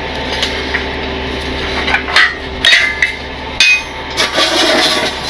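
Heavy steel wheel-lift scoops and their locking pin clanking against the tow truck's wheel-lift frame as they are pinned and strapped in place: a handful of sharp metal knocks between about two and four and a half seconds in, over a steady engine hum.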